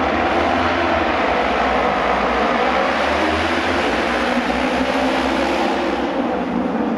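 A pack of Japanese auto race motorcycles with 600 cc twin-cylinder racing engines at full throttle, launching off the start and racing together. The engines are loud and steady with a slight wavering in pitch.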